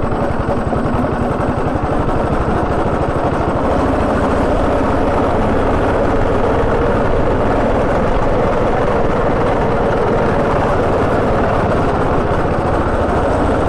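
Go-kart's small petrol engine running steadily as the kart drives round the track, heard close up from the driver's seat.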